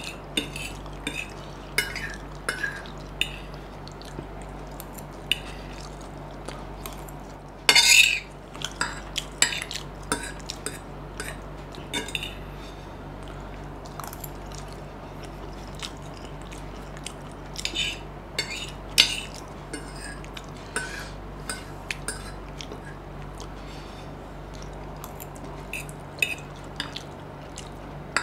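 Metal fork clinking and scraping on a plate as it scoops up chow mein noodles, with mouthfuls being eaten in between. The clicks come irregularly, every second or so, with one louder burst about eight seconds in.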